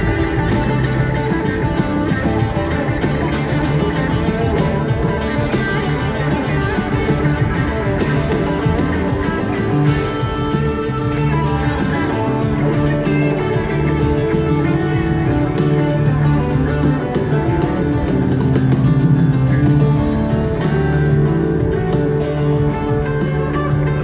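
Live jam-rock band playing a guitar-led passage with bass and drums, at a steady level with no break.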